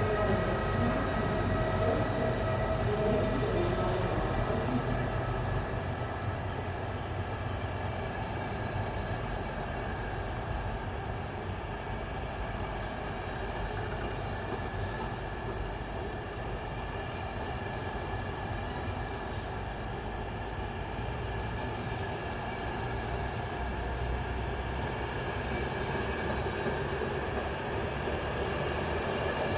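Passenger train rolling slowly along a station platform: a steady rumble with high, steady ringing tones, a little louder at the start and again near the end.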